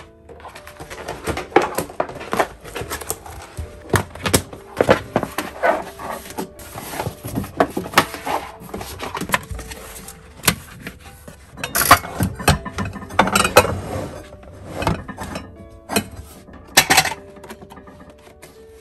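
A plastic shelf liner sheet rustling and flapping as it is smoothed onto a cupboard shelf, then glass and ceramic plates clinking and knocking as stacks are set back on the shelf, over soft background music.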